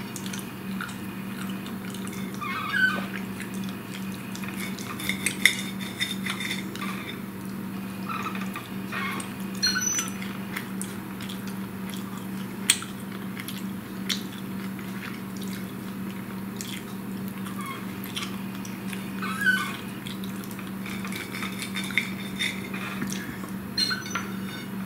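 A metal fork clinking and scraping on a plate at irregular moments, with close chewing sounds, over a steady low hum.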